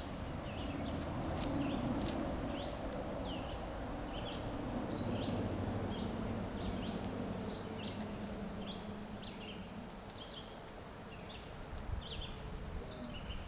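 Birds chirping: short high chirps repeated two or three times a second, over a steady low background rumble.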